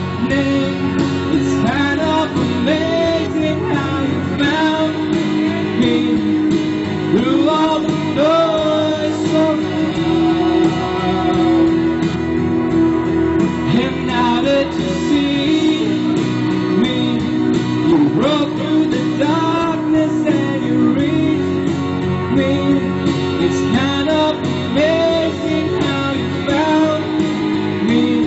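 A male singer singing a ballad into a handheld microphone over guitar-led backing music.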